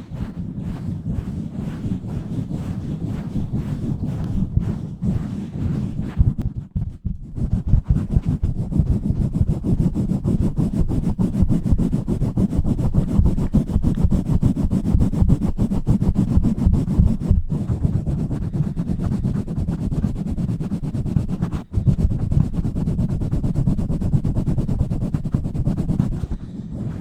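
Hands working fast and hard directly on a bare microphone, cupping, pumping and scratching it, giving a loud, dense, rapid rubbing noise that sits mostly deep. The noise eases briefly about six to seven seconds in and drops out for a moment twice later.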